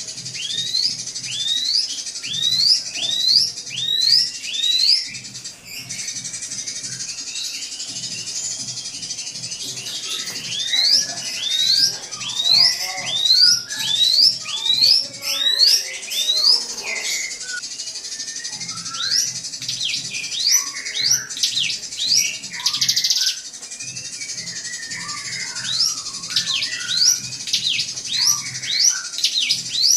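A drongo (srigunting) calling in rapid runs of short rising whistles, about two a second, over a steady high hiss.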